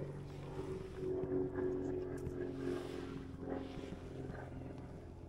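A steady, even-pitched motor hum, with muffled talk over it.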